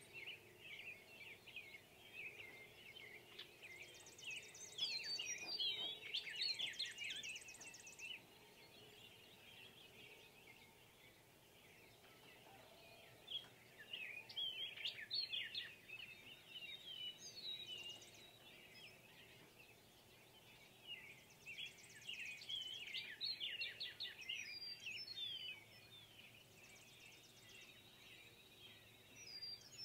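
Several birds chirping and singing faintly in bouts of a few seconds, with short buzzy trills now and then and quieter gaps between the bouts.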